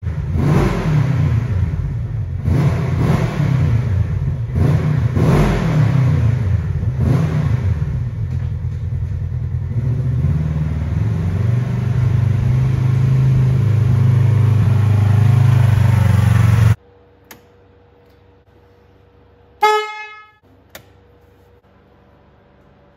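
Polaris RZR XP 1000's engine revving up and down several times, then running steadily, cut off abruptly about 17 seconds in. About three seconds later there is a single short pitched beep with a slight drop in pitch, then a faint click.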